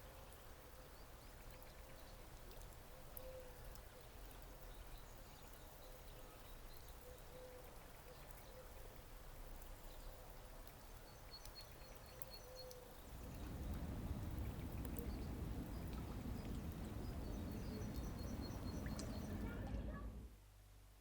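Outdoor ambience: a steady rushing noise with a few small high bird chirps. About two-thirds through, the rushing grows louder and deeper, then cuts off suddenly.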